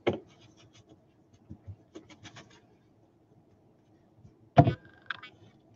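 Trading cards and wrapped packs being handled on a desk: a sharp click at the start, a few light ticks and rubs, and a louder thump a little over four seconds in.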